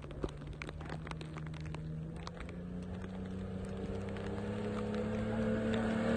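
Motorcycle engine pulling in gear, its note rising slowly and steadily as it gathers speed, with scattered light ticks over it.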